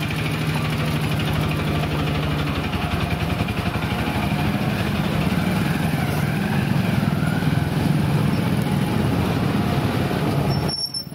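Motor-driven sugarcane juice crusher running steadily, its steel rollers squeezing a folded bundle of cane as it is fed through, with a continuous low hum.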